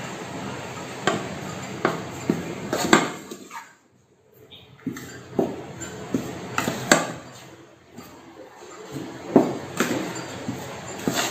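Plastic scoop stirring flour in a metal baking pan. Soft scraping is broken by irregular taps and clinks as the scoop knocks against the pan.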